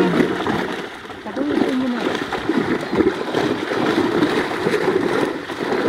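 Many fish thrashing and splashing in a hauled fishing net in shallow water: a busy, irregular splashing.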